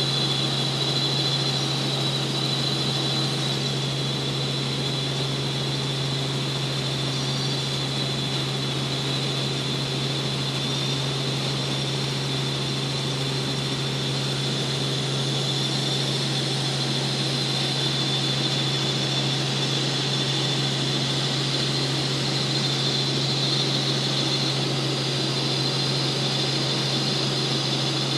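Helicopter in flight, heard from inside the cabin: a steady low drone with a high whine over it, unchanging throughout.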